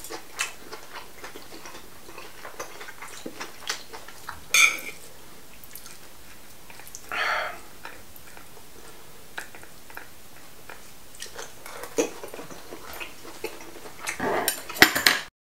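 Eating oyster pancakes (gul-jeon): chewing and biting, with scattered clicks of chopsticks on the plate and sauce bowl. The sound cuts off suddenly just before the end.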